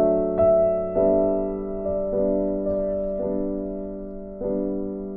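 Slow background piano music: notes or chords struck about once a second and left to ring and fade.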